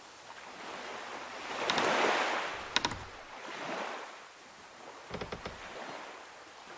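Rushing swells of noise that rise and fall like surf, with short rattles of rapid clicks about three seconds in and again later, as in the sound design of a festival logo sequence.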